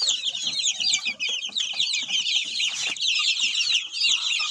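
A pen of young chicks with a few ducklings among them peeping without pause: many overlapping high-pitched cheeps. The owner takes this steady crying for the brood wanting to get out.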